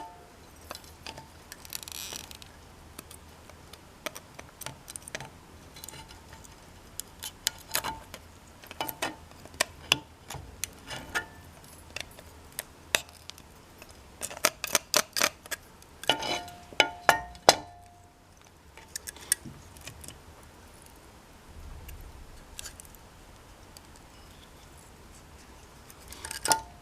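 Small hard objects being handled, giving scattered clicks and light knocks, with a quick run of clicks and clinks about fourteen to seventeen seconds in.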